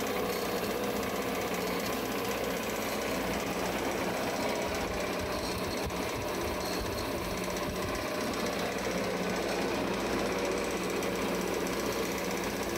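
Harbor Freight metal-cutting bandsaw running steadily, its blade wetted by a water-cooling nozzle and wiped by a brush.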